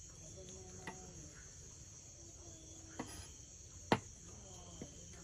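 Crickets chirping steadily, with a few sharp knocks of a large knife chopping meat on a cutting board, the loudest a little before four seconds in.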